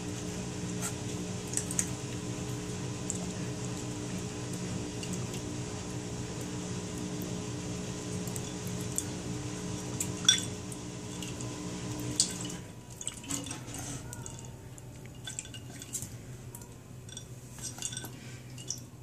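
Crushed ice clinking and water splashing in a dog's water bowl as a Shih Pom puppy bats at the ice with her paw and laps, in scattered sharp clicks and splashes. A steady low hum runs underneath and cuts off about two-thirds of the way through.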